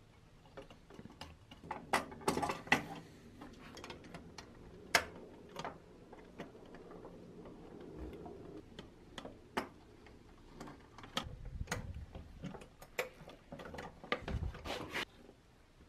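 Irregular clicks and taps of small metal parts being handled and fitted together as a 1960s pressed-steel toy dump truck is reassembled, with a few dull knocks in the second half.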